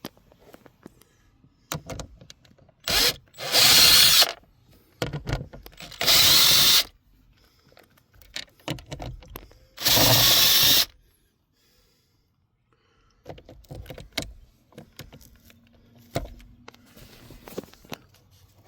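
A power drill runs in three spurts of about a second each, with clicks and handling noises between them, as a piece of the glove box latch is taken off.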